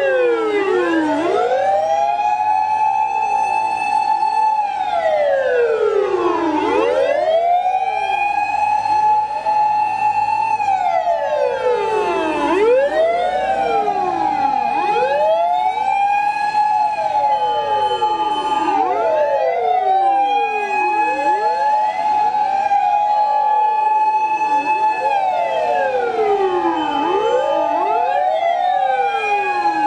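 Several fire truck sirens wailing together out of step. Each rises, holds a high tone and falls again every few seconds, so the wails overlap continuously, with a low engine rumble beneath.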